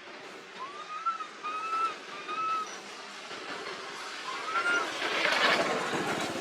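Four short, arched, whistle-like coo calls from a monkey, typical of a young macaque calling, followed near the end by a louder rough, hissing burst.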